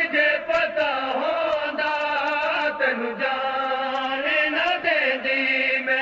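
A noha group chanting a Punjabi Shia lament (noha), a drawn-out melodic line that bends and wavers in pitch and is held without a break.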